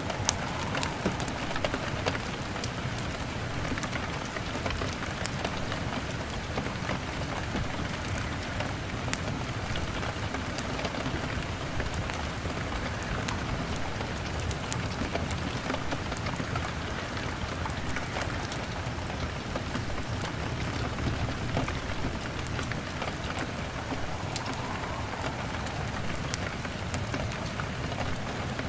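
Steady rain beating on a window pane, mixed with a crackling log fire: a constant hiss scattered with small ticks and pops.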